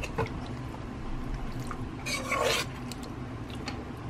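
A metal spoon stirs and scrapes sticky, sauce-coated chicken feet against a pressure cooker's metal inner pot. There is a small click, then a wet scraping rub about two seconds in, with a few light ticks of the spoon on the pot.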